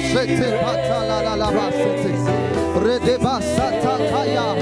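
Gospel worship music: sustained chords held under a solo voice singing and sliding between notes.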